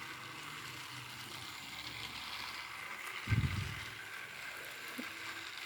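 Faint steady background hiss with one brief low thump a little over three seconds in, and a small click near the end.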